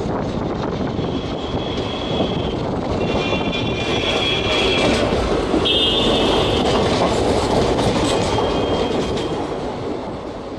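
Express train coaches running on a curve, heard from aboard: a steady rumble and clatter of steel wheels on the track, with a high wheel squeal coming and going several times as the flanges grind through the curve. The sound fades away near the end.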